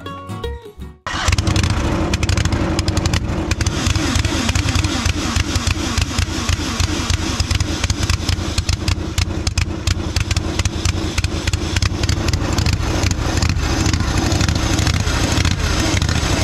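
Cushman Trackster's engine running steadily with a rapid firing beat, cutting in abruptly about a second in as guitar music fades out. It is driving the newly machined replacement driveshaft, which is spinning true.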